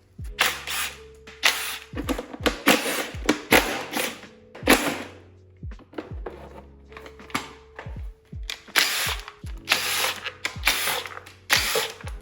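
Background music with low, repeated thuds. Over it come a dozen or so short, noisy bursts of hand or power tool work on the engine, bunched into two spells, one from about 2 to 5 s and one from about 8.5 to 11.5 s.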